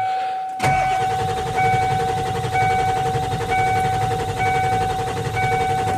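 1995 Ford F-250's 7.3 L turbo diesel cranking on the starter for about five seconds with a rapid, even rhythm and a steady starter whine, but not catching. A dashboard warning chime sounds throughout, beeping about once a second. The crank-no-start is what the owner takes for lost prime and air in the fuel lines.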